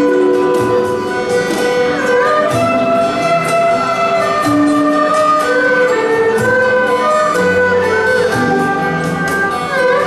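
Chinese traditional instrumental ensemble playing a slow melody: bowed erhu lines that slide between notes over plucked guzheng and acoustic guitar.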